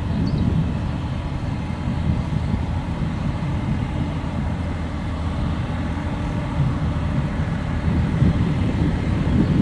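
Small narrow-gauge field-railway diesel locomotive running with a long train of peat wagons, a steady low engine rumble that grows louder near the end as it approaches.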